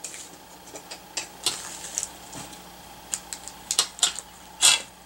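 Small plastic Shopkins blind basket being handled on a table: scattered light plastic clicks and taps, the sharpest a little over four and a half seconds in.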